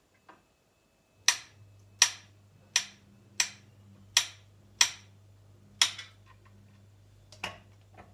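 Knife cutting a banana on a cutting board: about eight sharp taps of the blade striking the board, roughly one every two-thirds of a second, starting about a second in.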